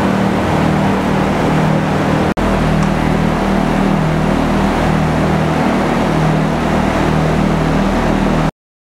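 Robotic sand-milling cell running: a loud, steady machine noise with a low hum. It breaks off for an instant about two seconds in and stops abruptly near the end.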